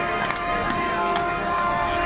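Ships' sirens sounding together in long held blasts, a steady low chord of horn tones, over the hubbub of a crowd, with scattered clicks and knocks. It is the sirens' salute greeting the saint as he passes.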